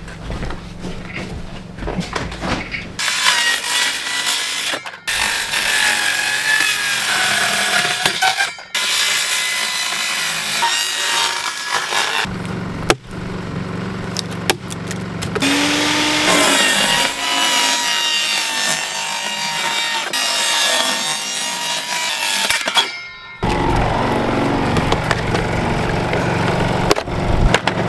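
A saw cutting through wood in two long stretches. Between them a generator's engine runs with a steady low hum.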